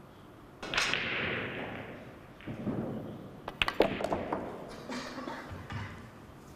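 Pool balls clicking: several sharp clicks a little over halfway through as the cue strikes the cue ball and balls knock together, with a few softer knocks after. About a second in there is a brief rushing hiss that fades away.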